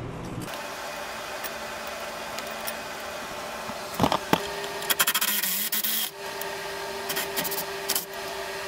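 Cordless power driver turning a socket on a sway bar bushing bracket bolt, with a steady motor whirr in the second half. Sharp metal clicks about four seconds in and a dense clatter around five seconds in.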